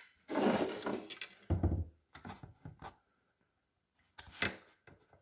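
A long aluminium ruler with a handle being shifted and set down on a canvas board: a rubbing slide, then a dull thud about a second and a half in. A few light clicks follow, and a short scrape near the end.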